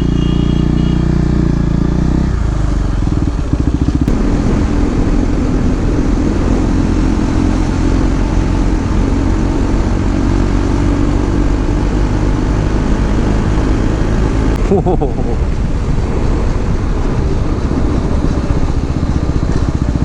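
KTM motorcycle engine running under way, with wind rushing over the microphone. The engine note changes about two seconds in and again near fifteen seconds.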